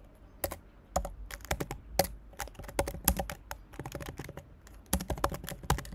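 Typing on a computer keyboard: irregular runs of quick key clicks broken by short pauses.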